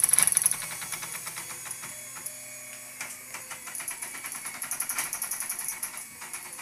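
Homemade RepRap 3D printer at work: stepper motors driving salvaged dot-matrix printer carriages clank in fast, rapid steps. The motors step a coarse 0.4 mm at a time without micro-stepping, which gives the rough, clanky sound. The clatter is loudest in the first half second and picks up again about four seconds in.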